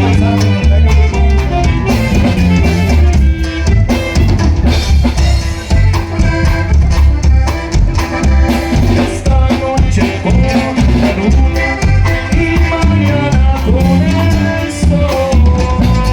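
Norteño band music: an instrumental passage of a corrido, with drum kit and bass keeping a steady beat under the melody instruments.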